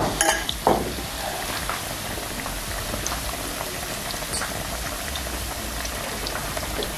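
Battered potato pieces deep-frying in a wok of hot oil: a steady bubbling sizzle, with a few sharp clicks in the first second.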